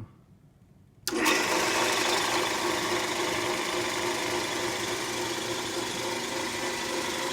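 Vintage Craftsman 150 drill press with its Vari-Slow speed attachment switched on about a second in, coming straight up to speed and running steadily at a fast spindle speed.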